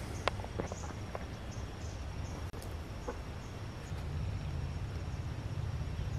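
Faint, scattered short bird calls and clicks over a low steady rumble of outdoor morning ambience.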